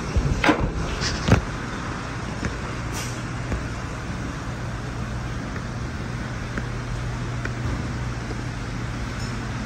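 2008 Ford Mustang's 4.6-litre V8 idling steadily, a low even hum, with two knocks in the first second and a half.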